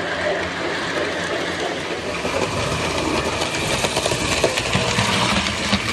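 O gauge model train running on its track: a steady electric motor hum with wheels rattling and ticking over the rails, growing a little louder about halfway through.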